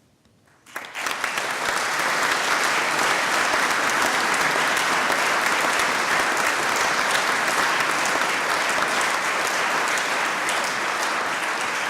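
Audience applauding, starting about a second in and going on steadily as a dense patter of many hands clapping.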